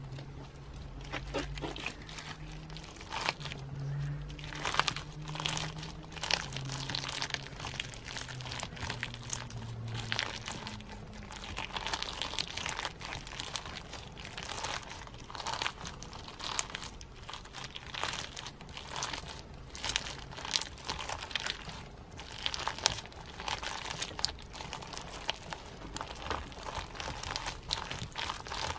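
Clear slime mixed with snowflake-shaped sequins being squeezed, stretched and kneaded by hand. It gives an irregular, steady stream of crunchy crinkling crackles as the sequins rub and fold together. A low hum sits underneath for the first ten seconds or so.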